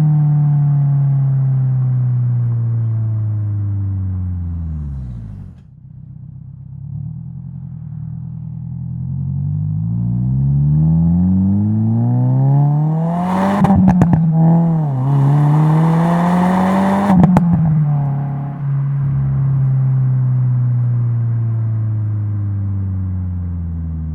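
2022 Subaru WRX's turbocharged 2.4-litre flat-four through a Remark R1 catback exhaust with titanium muffler. The revs first drop away, then rise hard to a peak with a brief dip, as at a gear change, and climb again. A rush of noise and a few sharp cracks come around the peaks before the revs fall off.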